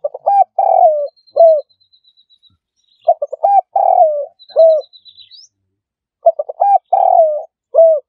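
Spotted dove calling: three cooing phrases about three seconds apart, each a quick run of short coos, then a longer falling coo and a final short coo. Faint, thin high trills from a small bird sound in the pauses.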